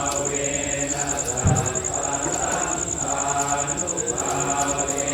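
A group of voices chanting a Thai Buddhist chant in unison, held and even in pitch. A short thump is heard about a second and a half in.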